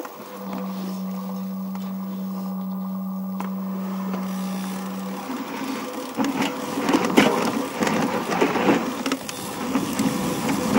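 Mountain bike ridden over a rough trail: a steady low hum for about five seconds, then irregular rattling and clattering with sharp knocks as the bike runs over rough ground.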